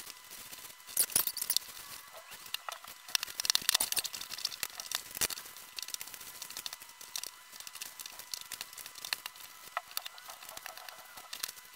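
Fabric rustling and swishing as it is smoothed and rolled by hand onto a cardboard bolt board, with crinkly scrapes and light taps of cardboard. The handling is loudest about a second in and again around three to four seconds in.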